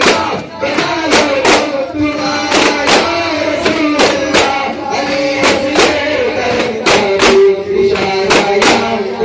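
A group of duff frame drums struck together in rhythm, about two beats a second and often in quick pairs, under voices singing a devotional chant.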